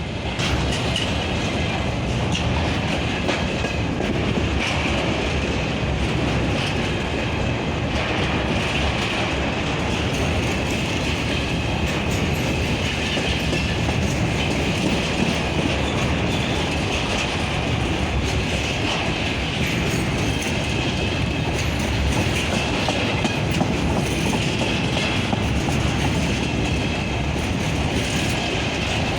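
Train hauled by a 2M62UM diesel locomotive rolling past at steady speed, wheels clicking over the rail joints, with a high wheel squeal that comes and goes.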